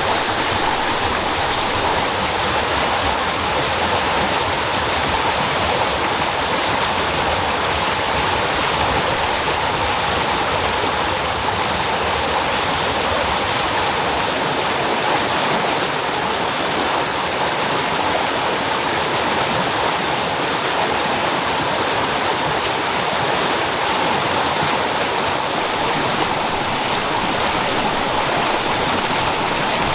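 Fast rocky stream rushing over boulders in white-water rapids: a steady, unbroken rush of water.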